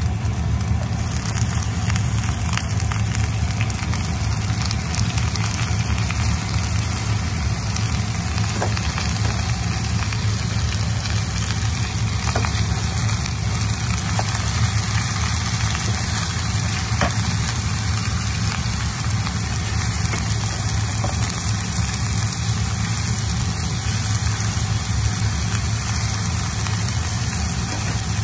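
Cabbage, bean sprouts and carrot sizzling as they stir-fry with pork in a frying pan, with now and then a light knock of a wooden spatula against the pan. A steady low hum runs under the sizzle throughout.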